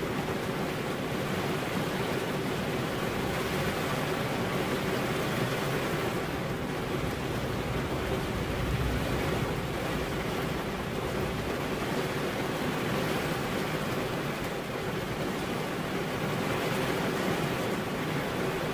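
Steady rain falling: an even rushing hiss, with no single drops standing out.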